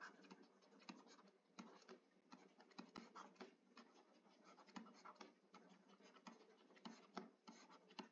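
Faint scratching and light tapping of a stylus writing by hand on a tablet, in short, irregular strokes.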